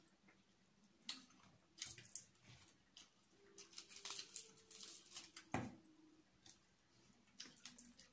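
Crispy fried chicken being pulled apart by hand and chewed, heard as scattered small crackles and clicks, with one sharper click about five and a half seconds in.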